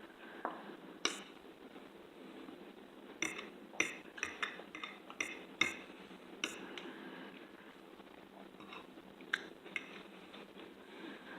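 Cutlery clinking against dishes during a meal, about a dozen short, light clicks scattered unevenly, with faint eating sounds between.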